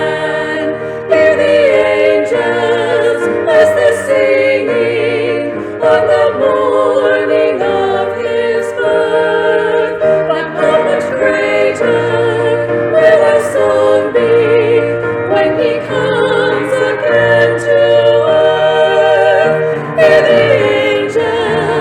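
Choir singing, several voices in harmony on long held notes with vibrato.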